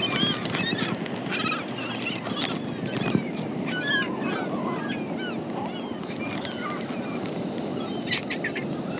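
A flock of gulls calling, many short overlapping cries throughout, over a steady background rush.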